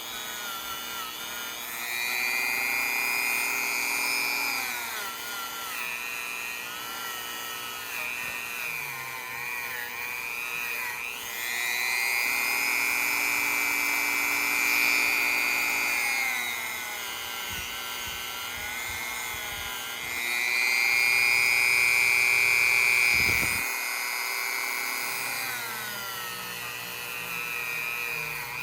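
Dremel rotary tool whining steadily while cleaning up the stamped lettering on an old ice pick, rising three times to a louder, higher whine and settling back between.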